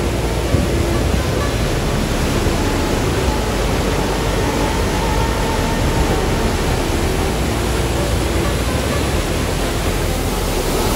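Large river rapids rushing steadily: an even, unbroken noise of whitewater churning over rocks.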